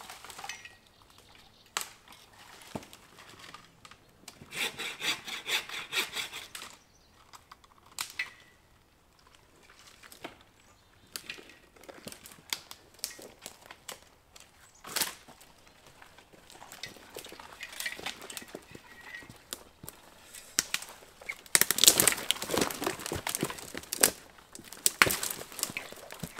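Dead twigs and branches snapping and rustling underfoot and against clothing while moving through thick brush, with scattered sharp cracks. Near the end comes a louder run of rapid rasping strokes: a folding bow saw cutting a dead branch.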